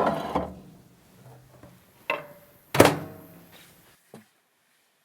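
A few knocks and thunks with short ringing tails, as of solid objects being handled, set down or bumped: a smaller knock about two seconds in, then a louder one with a ringing tail under a second later, and a faint click near the end.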